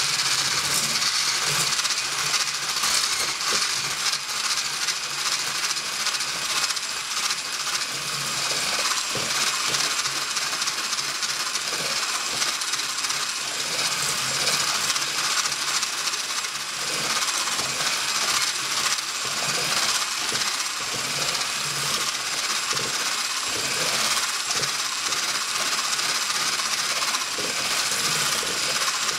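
Electric kitchen mixer running steadily without a break.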